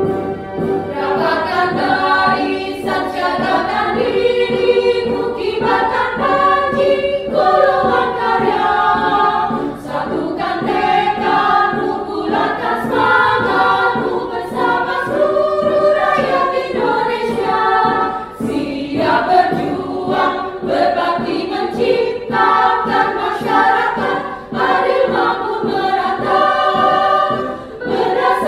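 Women's choir singing in sustained phrases, with short breaks between them.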